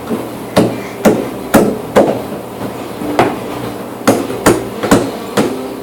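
Repeated sharp knocks of something being struck against a hard surface: about nine bangs, mostly half a second apart, with a short pause near the middle.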